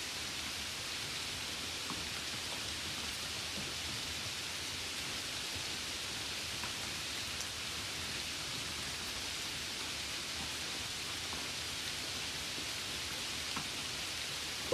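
Steady rainfall: an even hiss with a few faint drop ticks.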